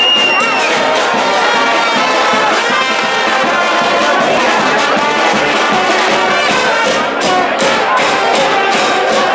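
Charanga brass band playing live: brass instruments carrying the tune over percussion.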